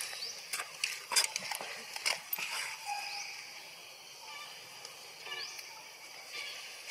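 Forest ambience: a steady high insect drone with a few short rising bird chirps, and a cluster of sharp clicks and snaps in the first two and a half seconds, loudest about a second in.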